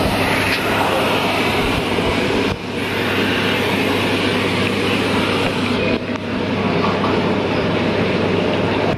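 Aerosol can of silicone lubricant spray hissing steadily as it sprays through its thin extension straw, with a brief break about two and a half seconds in.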